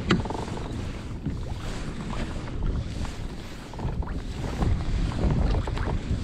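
Wind rumbling on the microphone over small waves slapping against a fishing kayak's hull, with a few light knocks. The wind gets louder about four seconds in.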